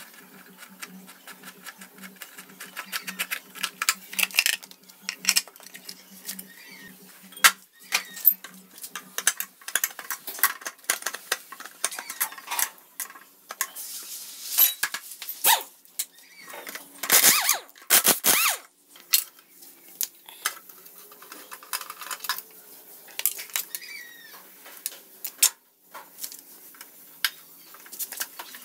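Metal body parts and hand tools knocking, scraping and clinking in an irregular string of clicks and clanks as an old Honda Super Cub 50 is taken apart by hand. A burst of louder clattering comes just past the middle, and a faint low hum runs through the first third.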